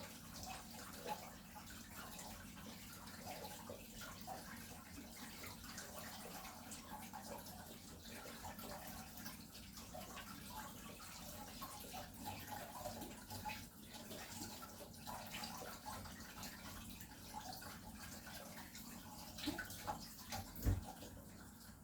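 Running water with scattered small clinks and knocks. Near the end come a few sharper knocks, the loudest a low thump.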